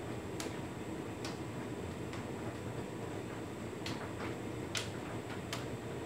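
Hotpoint Ultima S-Line tumble dryer running a standard cottons cycle: a steady hum from the drum and fan. Irregular light clicks and taps come from the tumbling load striking the drum, about five of them, the sharpest nearly five seconds in.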